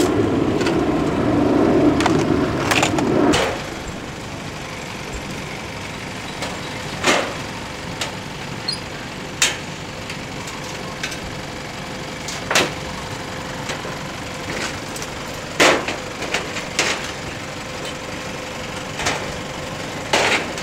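Folding metal table being carried and set up: sharp clanks and knocks of the metal frame every few seconds. At the start a steady low rumbling noise runs and cuts off suddenly about three seconds in.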